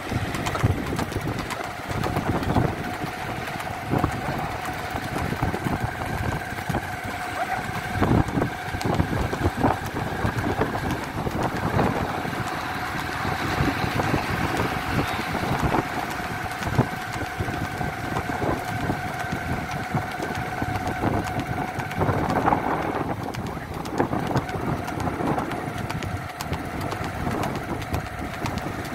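Engine of a vehicle travelling along the road at a steady speed, with a steady whine that fades out about three-quarters of the way through, over a rough, irregular rumble of road and wind noise.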